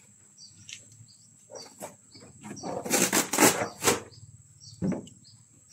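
A bird chirping over and over at a steady pace over a steady high insect drone. A cluster of loud clattering knocks comes about three seconds in.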